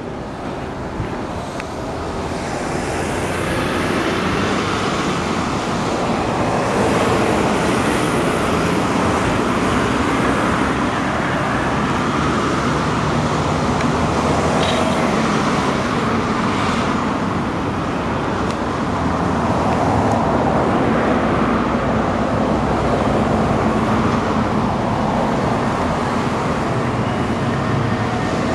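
Steady road traffic noise that swells over the first few seconds and then holds.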